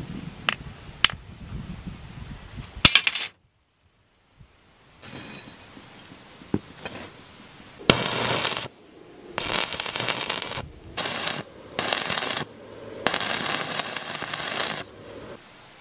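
Arc welding a rebar handle onto a large steel bearing ball with a welding rod: the arc crackles and sizzles in five bursts of up to two seconds each, with short breaks between them. Before it come a few sharp clicks as two rusty bearing balls are handled.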